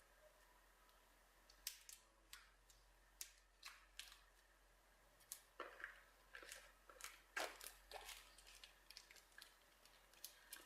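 Faint, scattered crinkles and small clicks of thin plastic film being carefully peeled off a smartphone's retail box.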